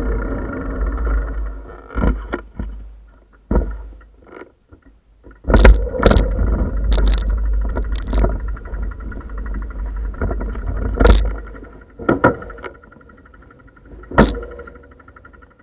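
Wind rumbling on a bicycle-mounted camera's microphone, dying down after a few seconds as the bike slows. Then irregular sharp knocks and rattles of the bicycle and camera mount as it rolls over paving and bumps at the steps.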